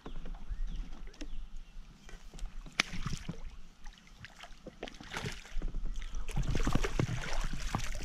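Hooked carp thrashing and splashing at the surface beside a kayak as it is drawn in and scooped into a landing net, with scattered knocks along the way. The splashing grows louder and busier over the last few seconds as the fish is netted.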